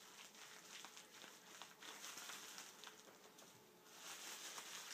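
Near silence: faint rustling and a few light clicks, as of items being handled.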